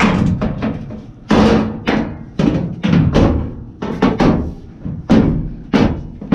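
A series of sharp knocks and bangs, about a dozen at uneven spacing, as the washer's top panel is pushed and knocked back into place on the cabinet.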